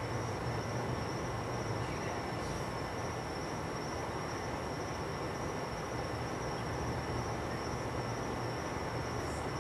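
Steady background hiss and low rumble with a continuous thin, high-pitched whine; no bangs or cracks.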